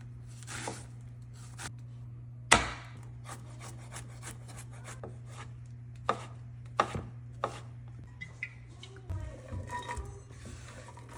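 Knife chopping on a cutting board: a few irregular sharp knocks, the loudest about two and a half seconds in, over a steady low hum.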